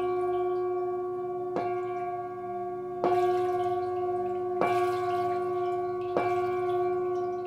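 Metal singing bowl struck with a padded mallet four times, about every second and a half. Each strike rings on with a steady low tone and a higher overtone that carry into the next.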